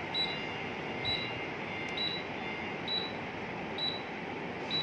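A ductless mini-split indoor unit beeps once for each remote command it receives as the set temperature is raised step by step. There are six short, high beeps, about one a second, over the steady noise of the unit's blower fan running.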